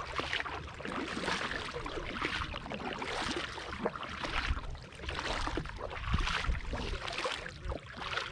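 Double-bladed kayak paddle strokes: the blades dip into calm water and drip and splash as they lift, in repeated swells about a second apart.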